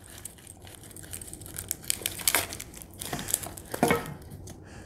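Crinkling and rustling as a small package is worked out of a nylon knife sheath, with a couple of louder sharp clicks about two and a half and four seconds in.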